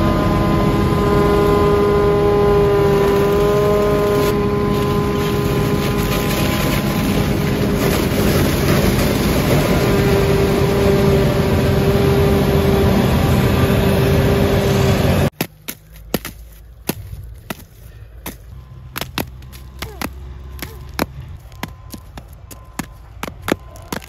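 Claas Jaguar 970 forage harvester with its Orbis 750 corn header cutting standing corn close by: a loud, steady machine din with several steady whining tones. About fifteen seconds in it cuts off suddenly, followed by quieter scattered sharp snaps and crackles of dry corn stubble being stepped on.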